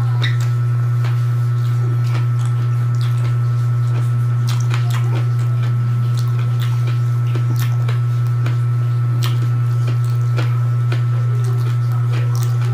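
Close-miked chewing, with wet mouth clicks and smacks scattered throughout, as a man eats kinilaw and rice by hand. A loud, steady low hum lies under it all.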